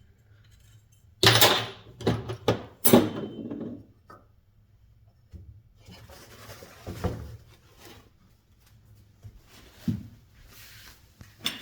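Clatter and knocks of tools and metal parts being handled on a workbench. Three loud rattling bursts come in quick succession about a second in, followed by scattered lighter clicks and knocks.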